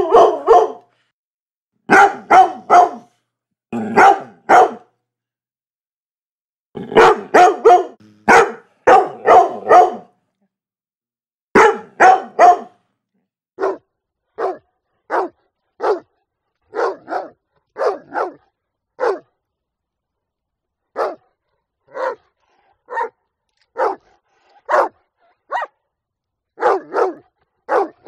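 A dog barking: clusters of two to four deep barks in the first half, then single barks about once a second, somewhat quieter, with dead silence between them.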